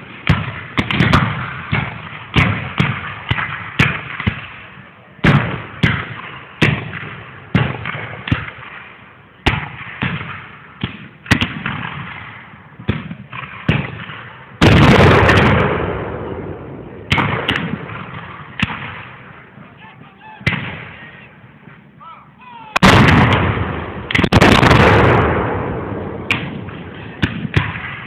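Black-powder reenactment gunfire with blank charges: scattered musket shots about one a second, some in quick pairs. It is broken by three much heavier blasts that ring out for a second or more, one about halfway through and two close together near the end.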